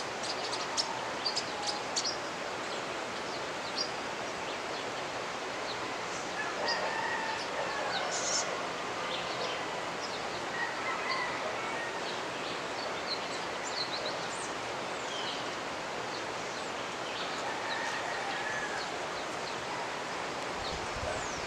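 The Jimenoa river's water rushes steadily throughout, while a rooster crows several times and small birds give short high chirps.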